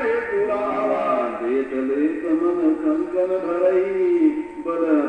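Male voice singing a slow devotional chant with long held notes over background music.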